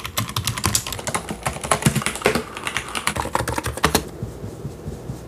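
Fast typing on a Hansung GK993B Sky mechanical keyboard with silent red switches: a dense run of rapid keystrokes that thins to a few scattered strokes about four seconds in.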